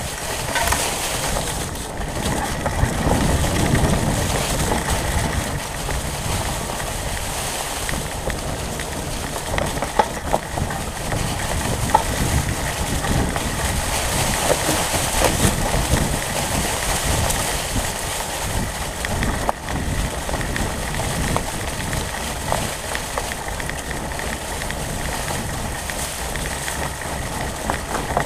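Fat-tyre mountain bike riding over a dry, leaf-covered dirt trail, heard through a camera mounted on the handlebars: a continuous rumble of tyres rolling over leaves and dirt, with scattered knocks and rattles from bumps in the trail.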